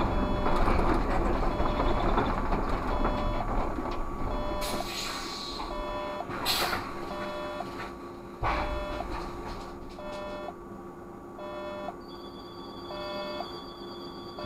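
Škoda 30Tr SOR trolleybus running slowly, heard from the driver's cab, with an electronic beep sounding about once a second. The running noise is louder for the first few seconds and then eases off, two sharp knocks come in the middle, and a steady high whine starts near the end.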